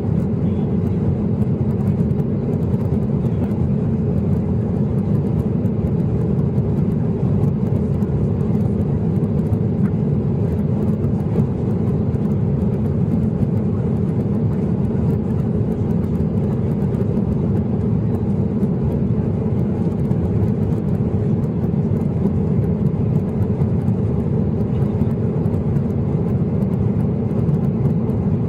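Cabin noise inside a Boeing 737-800 during its climb after takeoff: the CFM56 engines and the airflow past the fuselage make a steady, low rush that does not change.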